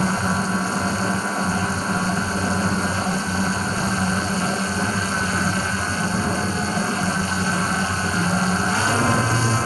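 DJI Phantom 4 Pro quadcopter's propellers humming steadily just overhead, rising in pitch near the end.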